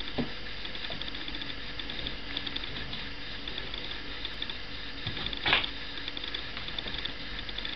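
A dog digging and pawing at a blanket in a cardboard box, her claws making a rapid, ratchet-like scratching, with one louder bump about five and a half seconds in.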